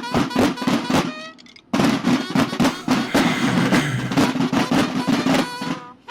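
Banda de guerra drums, snares and bass drums, beating a fast, rhythmic cadence. The drumming breaks off sharply about a second in, resumes half a second later, and cuts off just before the end.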